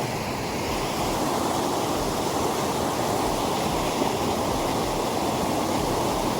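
Mountain stream's flowing water making a steady, even rush.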